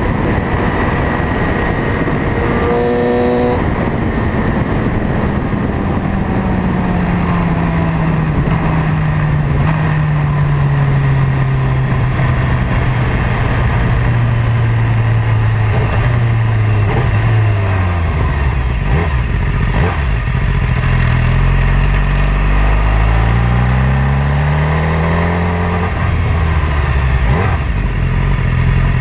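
Motorcycle engine under way with steady wind rush. The engine note slowly falls as the bike slows, then after about twenty seconds it rises in a few steps as it accelerates up through the gears.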